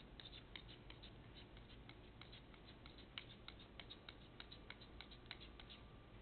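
Faint, irregular light clicks and scrapes, several a second, of a flexible putty knife pressing and spreading silicone sealant into a bowling-lane seam, over a low steady hum.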